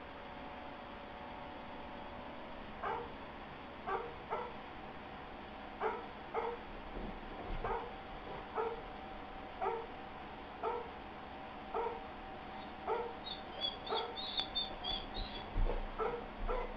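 Airedale terrier giving short, soft whines and yips, about one a second and coming faster near the end, with a few high squeaks in the last few seconds.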